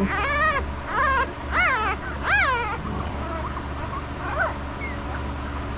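Five-day-old puppy whimpering: four high, squeaky cries that rise and fall in quick succession, then a couple of fainter ones.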